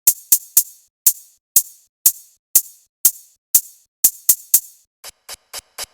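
Electronic dance music intro on a mobile disco sound system: a bright, sharp drum-machine hit repeats about twice a second with an occasional quick double. Near the end, quieter, faster hits build up before the track drops in.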